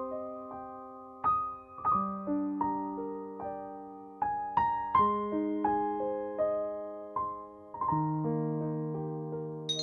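Background music: a slow, gentle piano melody over chords, each note struck and then fading.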